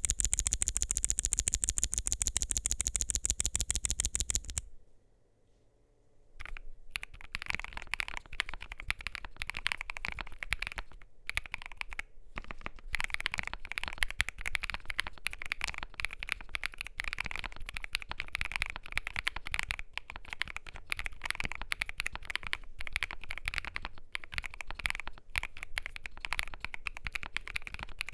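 Typing on a CIDOO V87 mechanical keyboard with lubed, filmed CIDOO Mint linear switches and PBT keycaps: a steady, uneven patter of key clacks. It opens with about four seconds of a faster, very even, brighter clatter, then a brief pause before the typing starts.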